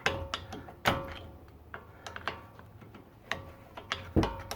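A hammer tapping a punch against the steel retaining pin of a front brake caliper, driving the pin out: about six irregular metallic strikes, each ringing briefly, the loudest ones just after the start, about a second in and near the end.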